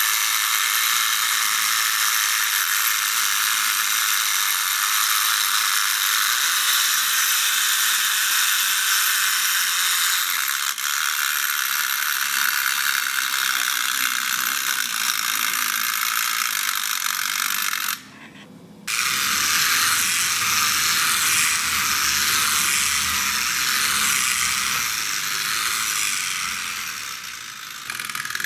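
Clockwork spring motor of a tin wind-up toy tractor running, a steady whirring mechanical rattle. It stops for under a second about 18 seconds in, then runs again with a deeper rumble underneath.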